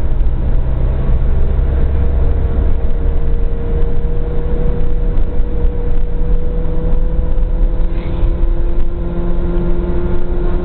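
Dacia Logan driving at a steady speed, heard from inside its cabin: a loud low road-and-wind rumble under a steady engine hum. The hum's pitch creeps up slightly near the end as the car gathers speed.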